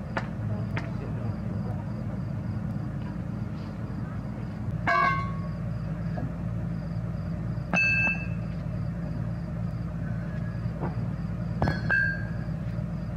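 A heavy diesel engine idling steadily, with three sharp metallic clanks that ring briefly: about five seconds in, at about eight seconds, and near the end.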